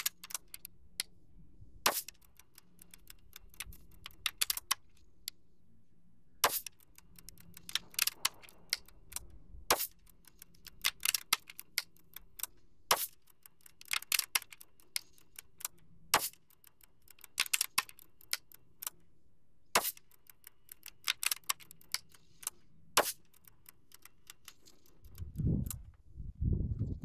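Irregular sharp clicks and quick clusters of ticks from a custom HM1000X PCP air rifle being cocked and fired over a chronograph that has a printer. Some low thumps of handling come near the end.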